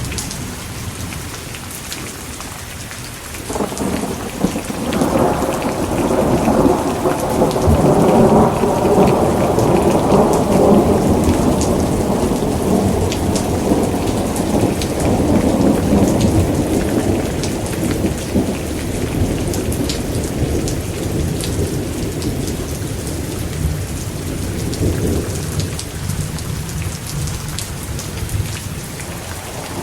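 Steady heavy rain with a long roll of thunder that starts about three seconds in, swells, and slowly fades over some twenty seconds; another rumble begins at the very end.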